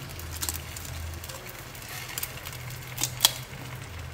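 Eggs frying gently in a nonstick pan with a faint crackle over a steady low hum, and two sharp taps about three seconds in as an egg is cracked against the pan's rim.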